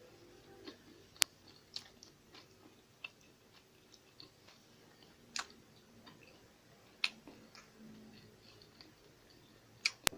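A person chewing food, close to the microphone, with scattered soft sharp clicks; the sharpest come about a second in and twice near the end.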